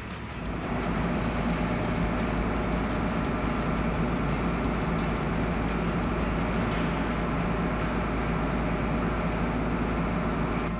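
An engine running steadily, getting louder about half a second in.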